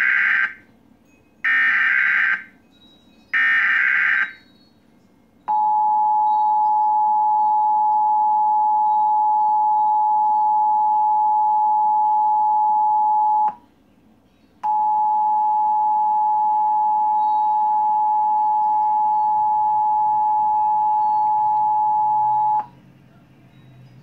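Emergency Alert System required monthly test heard through a television speaker: three short bursts of screeching SAME digital header data, each about a second long, then the steady two-tone attention signal (853 and 960 Hz). The attention tone holds about eight seconds, drops out for about a second, then sounds about eight seconds more and cuts off.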